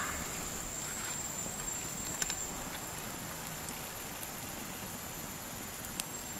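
A steady high-pitched insect drone, with a few small sharp clicks over it, the first two a couple of seconds in and another near the end.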